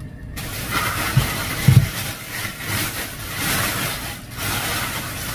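Thin plastic shopping bags crinkling and rustling as vegetables are handled inside them, with two dull knocks about a second and a half in.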